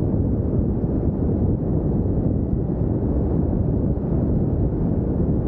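Steady low rumbling wind noise buffeting the microphone of a camera on a Pipistrel Virus SW light aircraft in flight, with the aircraft's engine mixed in.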